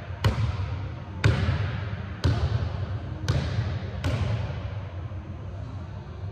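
Basketball dribbled on a hardwood gym floor: five bounces about a second apart, each echoing through the hall, ending about four seconds in.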